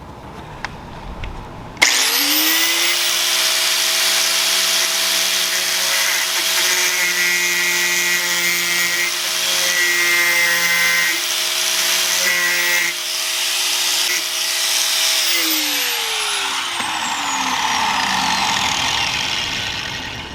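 Electric angle grinder switched on about two seconds in, spinning up and then cutting into the rusted steel of a car's quarter panel with a loud, harsh screech. The cutting eases off near the two-thirds mark, and the grinder is switched off and winds down with a falling whine.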